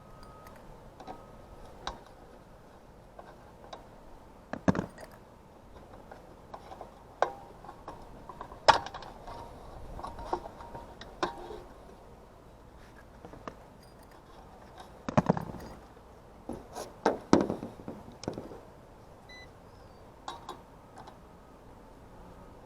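Irregular clicks, rattles and knocks from handling of hardware, with a few louder knocks scattered through it over a low steady background.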